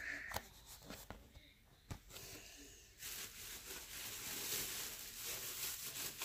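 Faint handling noises with a few soft clicks, then about three seconds of steady rustling from things being handled and moved close by.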